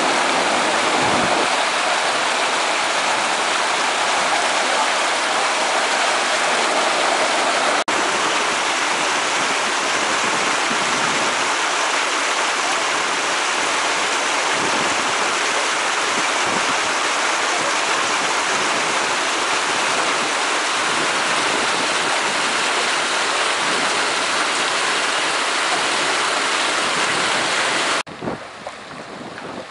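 Water rushing through the slots and gates of a concrete water channel: a loud, even rush. It cuts off abruptly near the end, leaving quieter sounds.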